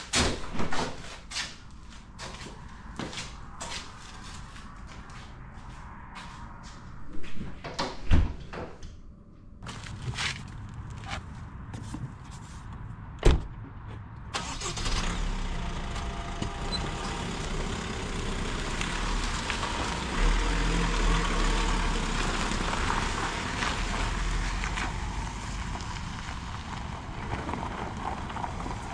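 Scattered clicks and knocks, then a car door shutting with a loud thud about 13 seconds in. After that a car drives, with steady engine and road noise.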